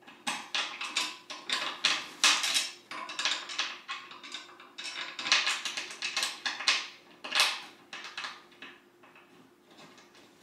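Irregular clinks, knocks and rattles of Flash Furniture Kelista mesh office chair parts being handled and fitted together during assembly, several a second, thinning out near the end.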